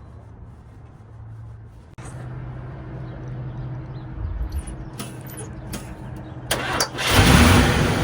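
Car engine being jump-started from a portable jump-starter pack. A low steady hum, then about seven seconds in a sudden loud rise as the engine starts and runs up.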